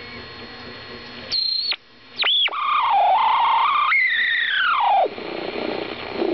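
AM radio being tuned by hand across the band: hiss and static with whistling tones that jump and glide in pitch as the dial passes between stations. The loudest is a long whistle that falls from high to low about four seconds in, after which it turns to rougher static.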